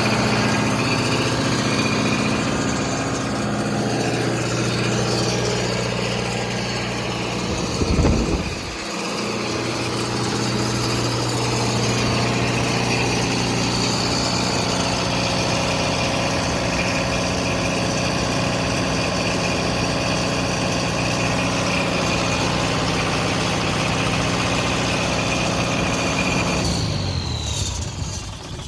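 John Deere diesel engine of a 45 kW generator set running at a steady speed, with a brief loud thump about eight seconds in. Near the end the engine is shut off and its pitch falls as it winds down to a stop.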